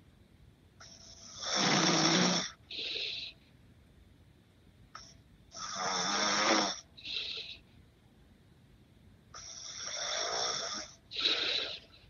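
A man snoring in steady sleep: three long snores on the in-breath, about four seconds apart, each followed by a shorter, hissier out-breath.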